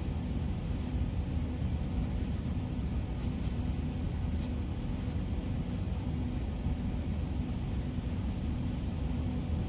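Steady low rumble with a faint hum: the background room noise of a large indoor sports hall. A few faint light ticks come in the middle.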